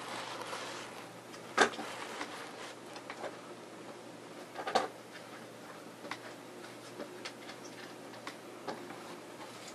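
Quiet room tone with a faint steady hum and a few short, soft clicks, the clearest about one and a half seconds in and another near five seconds.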